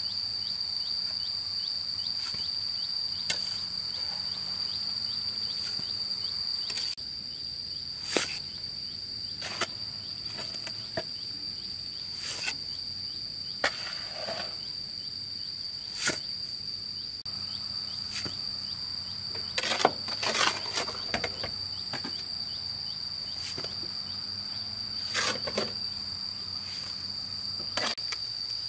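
A steady high-pitched insect buzz, like a cicada or cricket chorus, runs throughout. Over it come scattered knocks and scrapes of a steel shovel working wet mortar in a wheelbarrow and trench, with a cluster of scrapes about two-thirds of the way in.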